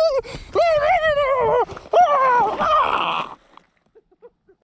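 A high-pitched voice wailing in a run of short rising and falling notes, stopping abruptly about three and a half seconds in, followed by a few faint ticks.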